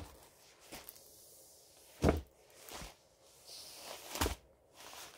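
A handful of short knocks and faint rustling as a rolled diamond painting canvas is unrolled and handled, the loudest knock about two seconds in.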